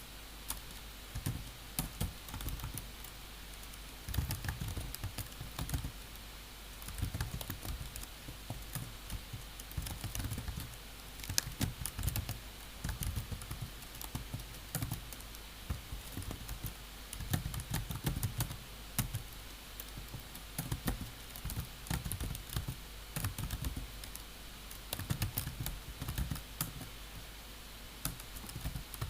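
Typing on a computer keyboard: runs of quick key clicks with short pauses between them, over a faint steady room hum.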